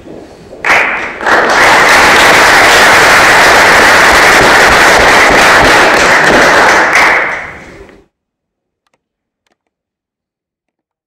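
Audience applauding, loud and close to the microphone, starting about a second in and dying away about seven seconds in.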